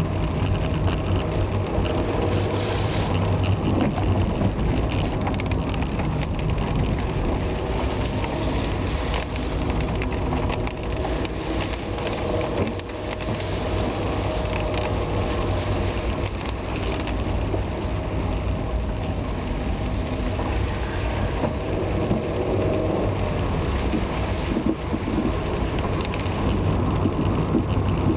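A motor vehicle driving in the rain: a steady wash of rain and wet-road noise over a continuous low engine rumble.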